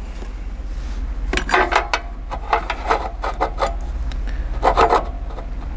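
Scraping and clicking of hard parts being handled, in three short bursts, as the recoil starter on a walk-behind tractor's Weima engine is touched and turned.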